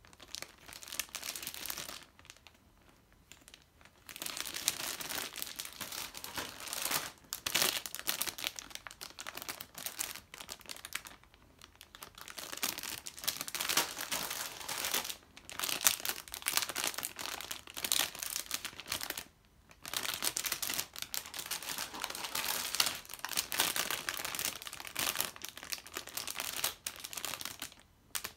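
Thin clear plastic bags crinkling as bagged plastic model-kit runners are handled and lifted out of a box, in bursts broken by a few short pauses.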